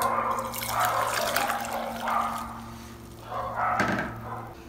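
Warm herbal infusion being poured through a fine mesh strainer into a glass mug, splashing as the mug fills. The pouring comes in two goes, the second shorter.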